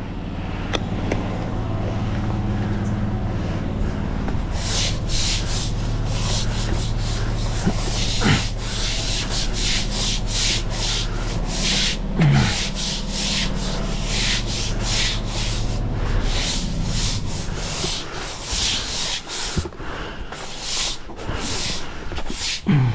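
Stiff broom sweeping wet patio slabs, a run of repeated scraping strokes that starts a few seconds in, pushing disinfectant wash water into a kitchen drain gully. A steady low hum runs underneath for the first half.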